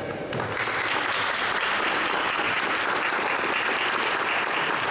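A small seated audience applauding: the clapping starts about half a second in and goes on steadily.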